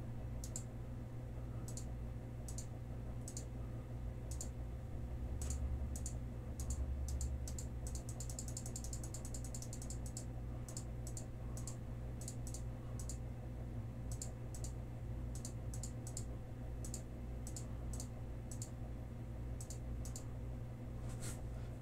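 Computer mouse clicking, irregular single clicks with a quick run of rapid clicks about eight seconds in, over a steady low hum.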